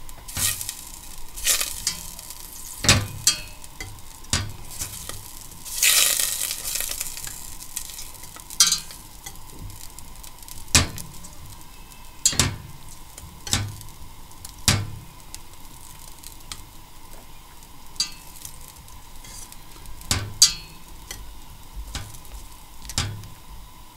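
A wire whisk knocking and scraping against the inside of a stainless steel pot as melting butter is stirred, in irregular strokes, with the butter sizzling; the hiss swells about six seconds in.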